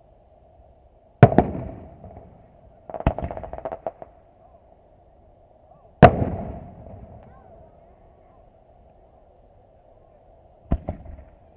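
Aerial firework shells bursting at a fireworks display. One sharp bang comes about a second in, then a quick cluster of several reports around three seconds. The loudest bang follows about six seconds in, rolling away slowly, and a pair of sharper reports comes near the end.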